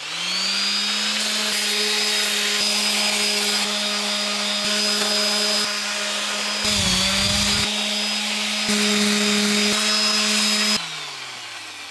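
Electric random orbital sander starts up with a rising whine and runs steadily, sanding the paint off a metal seat frame. Its pitch dips briefly a little past halfway, and it winds down about a second before the end.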